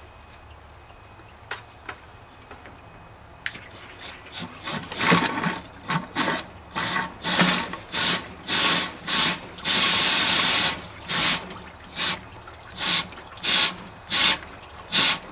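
Compressed-air blow gun fired in a rapid series of short hissing blasts, with one longer blast about ten seconds in, forcing air through a truck's heater core to flush out debris. The blasts start after a few quiet seconds.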